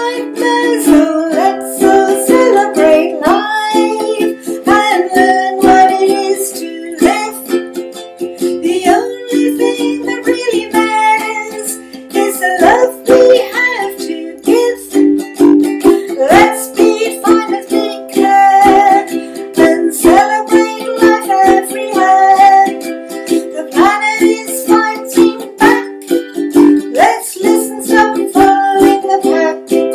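A woman singing with her own strummed ukulele accompaniment, a steady rhythm of chords under the melody.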